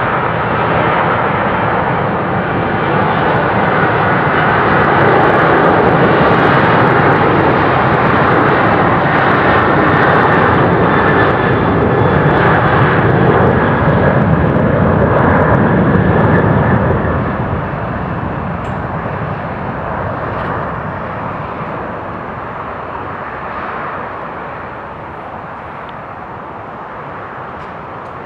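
Boeing 737-800's CFM56-7B turbofan engines at takeoff thrust: a loud jet roar that builds, holds, and then fades steadily from about two-thirds of the way through as the airliner climbs away.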